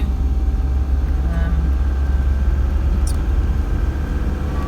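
Steady low rumble of engine and road noise inside a moving van's cab at cruising speed.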